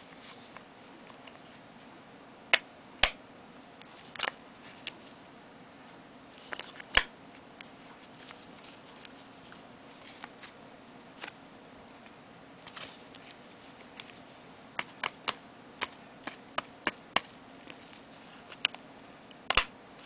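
Irregular sharp clicks and light taps from handling a cardboard backing card of wooden fridge magnets and its paper packaging, coming more often in the last few seconds, over a faint steady low hum.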